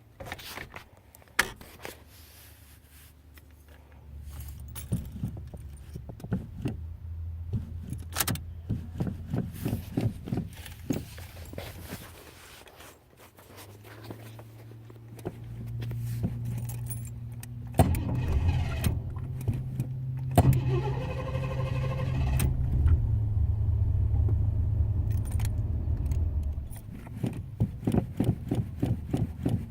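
Car engine being cranked on the starter in a rhythmic churn, a hard start. It catches after several seconds of cranking and runs, rising and falling in pitch with a couple of sharp bangs. Near the end it goes back to rhythmic cranking.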